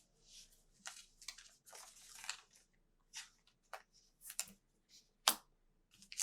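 Topps Chrome trading cards being slid and flicked one past another while flipping through a pack: a series of short soft swishes, with a sharper snap about five seconds in.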